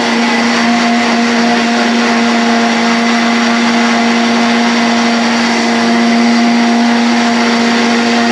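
A motor or small engine running steadily at a high, even speed, with a loud rushing hiss over its hum; it cuts off abruptly at the very end.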